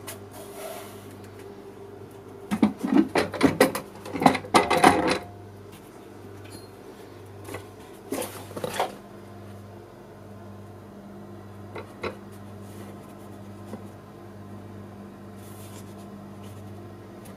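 Hard plastic Pelican 1200 case and an EVA foam block being handled: a loud cluster of knocks and clatters from about 2.5 to 5 seconds in, another short one around 8 seconds and a single knock near 12 seconds. A steady low hum with a slow pulse runs underneath.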